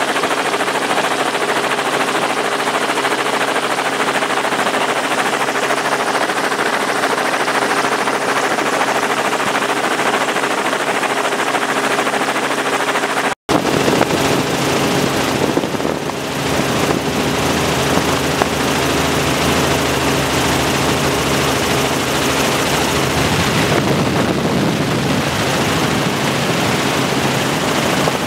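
Helicopter in flight, a steady engine drone with a rapid rotor chop, with a momentary break about halfway through.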